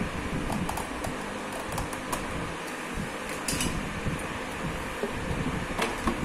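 A few light clicks and rustles as hands handle the wiring and plastic parts inside an opened RO water purifier, over a steady fan-like whir.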